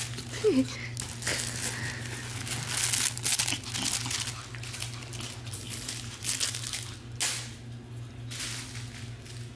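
A crinkly fabric puppy toy rustling and crinkling in irregular bursts as it is shaken and tugged, with a brief squeak about half a second in.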